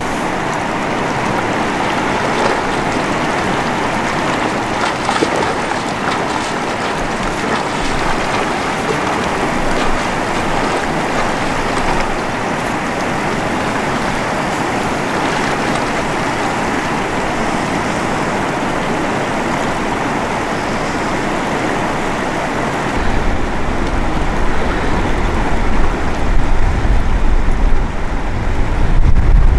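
Steady rushing water. About three-quarters of the way through, wind starts buffeting the microphone, adding a gusty low rumble.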